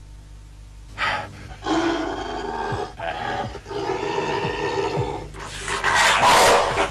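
Tiger roaring, starting about a second in and loudest near the end.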